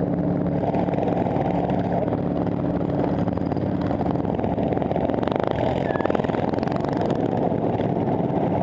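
Racing ride-on lawn mower's engine running steadily at speed, heard close up from on board the mower.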